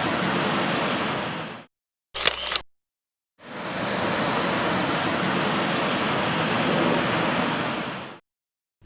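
Steady rushing roar of Victoria Falls' falling water and spray, fading out and back in twice, with a brief half-second sound and then silence between the two stretches.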